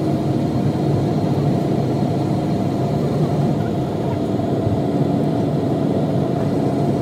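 Airliner cabin noise while taxiing after landing: the engines' steady hum heard from inside the cabin, with a couple of faint steady tones running through it.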